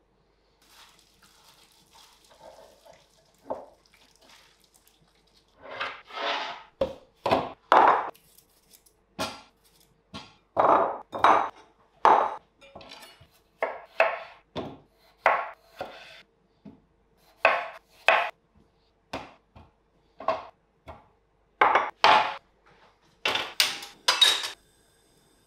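Kitchen clatter of utensils and dishes: an irregular run of sharp clinks and knocks, one or two a second, after a few seconds of faint handling sound.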